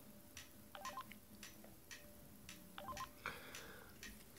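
Two short key beeps from a Trium MT-140 Astral mobile phone, about two seconds apart, as its menu keys are pressed, with faint clicks in between.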